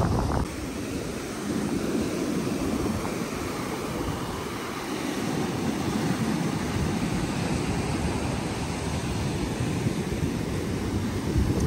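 Ocean surf washing on a beach, a steady rushing noise that swells and eases, with wind on the microphone and a louder surge near the end.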